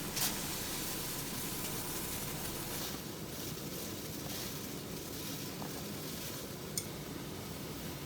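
Pot of water boiling for noodles: a steady bubbling hiss, with a light click about a quarter second in and another about seven seconds in.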